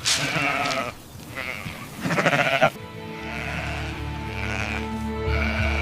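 Sheep bleating twice, the second call with a fast quavering tremble; about three seconds in, string music comes in and holds steady chords.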